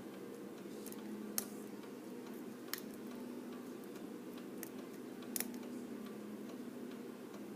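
Light clicking and ticking of a lock pick working the pins inside a pin-tumbler challenge lock, with three sharper clicks spread across the span over a steady low hum.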